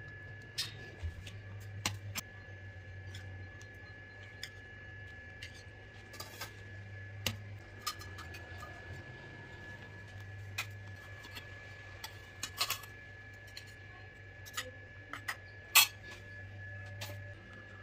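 Scattered clinks and taps of a steel ladle and serving spoon against stainless-steel bowls and plates as food is dished up, the sharpest clink near the end. A steady faint hum and a thin high whine run underneath.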